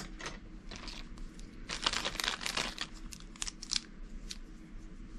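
Thin clear plastic zip bag crinkling as it is handled and opened and drill pens are pulled out, in short crinkles that come thickest about two seconds in.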